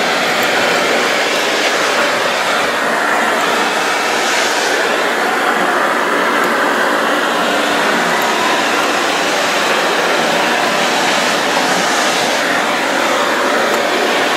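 ProTeam QuietPro backpack vacuum running on its high speed: a steady rush of motor and suction air as the floor tool moves over hardwood, with the hiss swelling briefly a couple of times.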